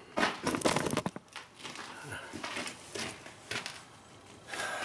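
Irregular rustling, crackling and clicking of handling noise on the camera's microphone as the camera is moved and repositioned.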